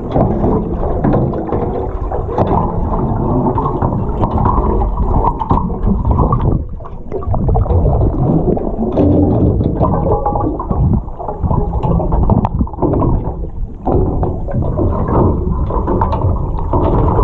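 Muffled underwater noise picked up by a submerged camera: a dull, continuous rush and slosh of water moving against the housing, with scattered knocks and bumps.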